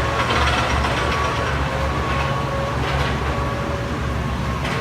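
Mini excavator engine running steadily, with a steady whine above the low engine hum.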